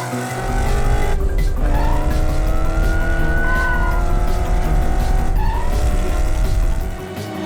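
Cartoon race-car engine sound effect: a low engine rumble that starts about half a second in and drops away near the end, over background music.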